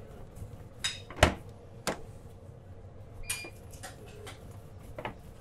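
Sharp knocks of kitchen work, about five in all and irregularly spaced, the loudest a little over a second in, with a short metallic clink near the middle, over a faint steady hum.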